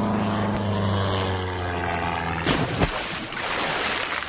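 Sound effect of a small propeller airplane, its engine running with the pitch slowly falling as it goes down, then a crash of a couple of sharp hits about two and a half seconds in, with noise after.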